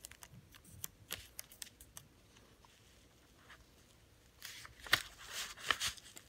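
Paper and sticky tape handled by hand: scattered light ticks in the first two seconds, then a louder stretch of rustling and crackling near the end as the tape is pressed down onto the sheet.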